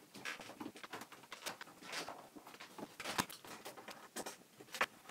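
Irregular light clicks and knocks of the Atari 1040STF's plastic case being handled and turned over, with a screwdriver working at screws on its underside.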